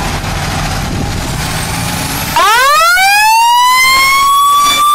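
Fire truck engine idling with a low rumble, then about halfway through the truck's siren comes on loud, its pitch sweeping up and levelling off into a steady high wail.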